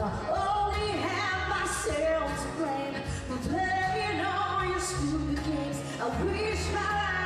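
A woman singing a country song live into a microphone, backed by a band with bass and drums, with cymbal hits about two and five seconds in.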